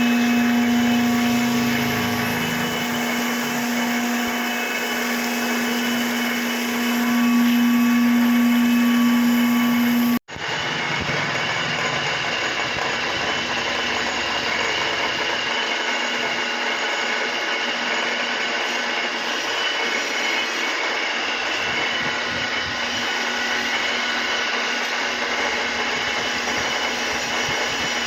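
Machine-shop power machinery running steadily with a strong motor hum. It changes abruptly about ten seconds in to a different steady machining noise with a high whine.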